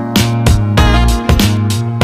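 Background music with a steady beat, bass and plucked guitar-like notes.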